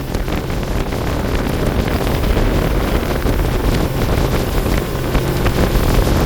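Speedboat under way at speed: steady engine drone under rushing water, with wind buffeting the microphone. It grows a little louder over the first second or two.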